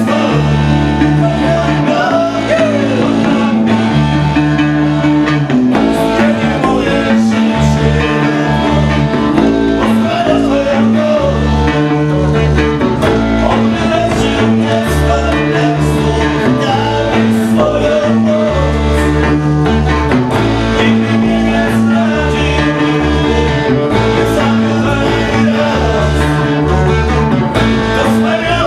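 Live blues-rock on electric guitars played through small amplifiers: a repeating low riff with guitar lines bending above it.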